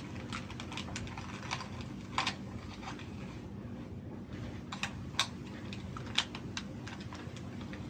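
Light, irregular clicks and taps of a plastic camera flash unit being handled and turned over in the hands, with a few sharper clicks a couple of seconds in and around five and six seconds in, over a steady low hum.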